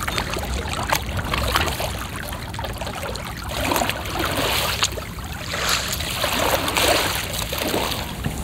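Double-bladed kayak paddle dipping and pulling through the water, with water trickling and splashing off the blades in uneven swells every second or two.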